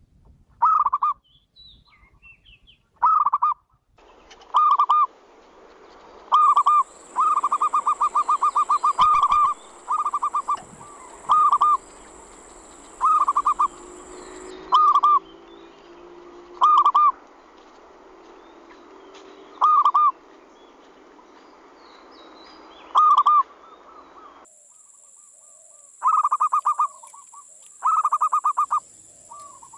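Young wild local zebra dove (perkutut) singing its cooing song: about fifteen short trilled coos, each a quick run of soft staccato notes, at irregular gaps, with a longer unbroken run of notes about a quarter of the way in.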